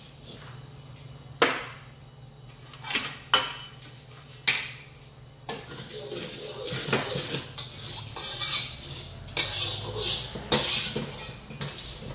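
Metal ladle knocking and scraping against a steel wok while swirling oil: a few sharp separate clinks, then busier clattering and scraping from about halfway in.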